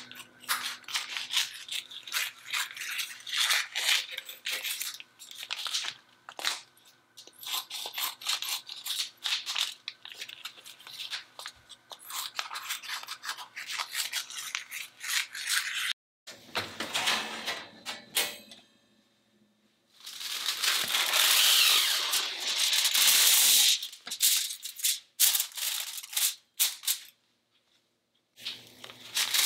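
Thin plastic vacuum packaging crinkling and rustling while kitchen scissors snip it open, in a long run of small irregular crackles. About two thirds of the way in, after a brief pause, comes a louder, denser stretch of crinkling that lasts a few seconds.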